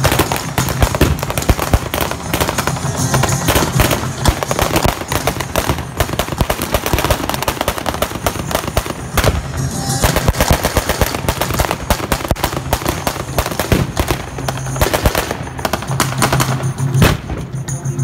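Rapid blank gunfire from automatic rifles, dense irregular bursts and single shots that thin out near the end, with background music from a PA loudspeaker underneath.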